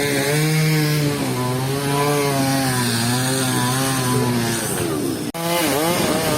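Chainsaw engine running under load while cutting through a fallen tree trunk, its pitch sagging and recovering. After a break about five seconds in, a chainsaw revs rapidly up and down.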